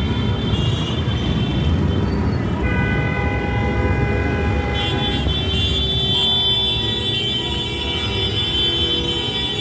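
Car horns sounding in long held blasts from about three seconds in, their pitch changing near the middle, over the steady rumble of motorcycle and car engines.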